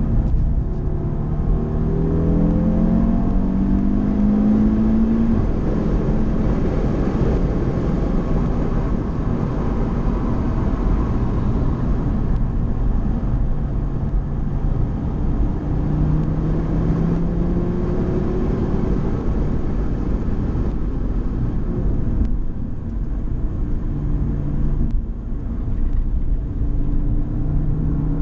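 A car's engine and tyre noise are heard from inside the cabin as the car is driven around a race track. The engine pitch rises as the car accelerates over the first few seconds, then holds and shifts with the throttle. The car eases off briefly about three-quarters of the way through.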